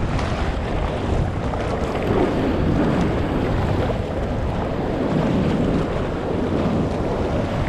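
Whitewater foaming and rushing around a GoPro held at water level on a surfboard, with water and wind buffeting the camera's microphone in a steady churning noise.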